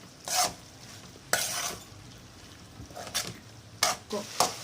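Sweet corn kernels in butter being stirred in a kadai, with about six short scraping strokes of the stirring utensil against the pan over a faint sizzle.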